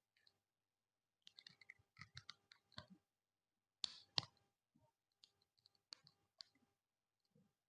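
Small parts of a plastic and diecast snap-fit model kit clicking and tapping as they are handled and pressed together: a run of light clicks, two sharper clicks a little under four seconds in, then a few faint ticks.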